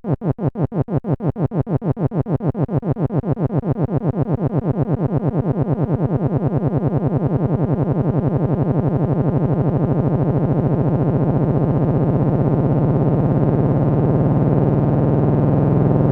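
A fart sound effect looped over and over, the repeats speeding up from about five a second until they run together into one continuous low buzzing tone.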